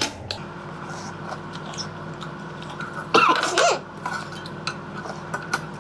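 Metal chopsticks and a spoon clicking against a small stainless steel bowl over a steady hum, with one short cough about three seconds in.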